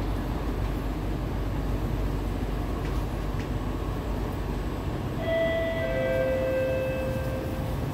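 Steady low hum and rumble of a Kawasaki-Sifang C151B metro train standing at a station with its doors open. About five seconds in, a two-note electronic chime sounds, the second note lower, each note held for a second or more.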